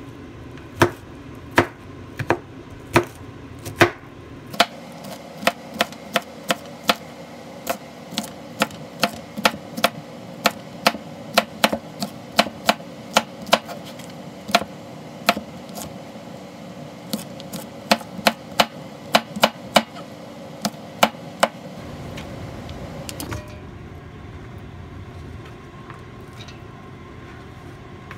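Kitchen knife chopping Korean zucchini on a plastic cutting board, in sharp knocks at about two a second. The chopping stops a little after 20 seconds, leaving a steady background hum.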